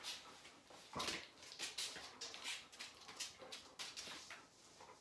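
A dog whimpering faintly in short, irregular bursts, with a louder bump about a second in.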